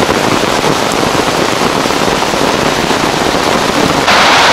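Rain drumming on an umbrella right above the microphone: a dense, crackling patter of drops on the fabric. About four seconds in it suddenly gets louder and brighter.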